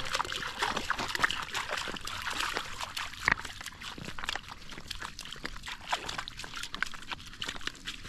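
Golden retriever moving about in a shallow river, with water trickling and sloshing and many irregular small splashes.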